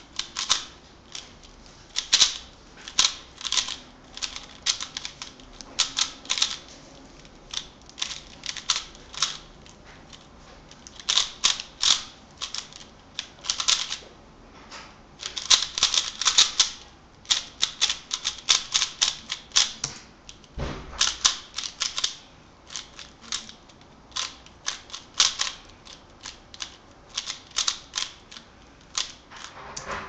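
Stickerless 3x3 speedcube being turned fast by hand during a timed speedsolve: its plastic layers click and clack in rapid flurries broken by short pauses. There is one dull bump a little past two-thirds through.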